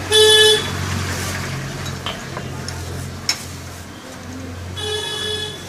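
Two short vehicle horn honks, one at the start and one near the end, over a steady low traffic hum, with a single sharp metallic clink a little after three seconds.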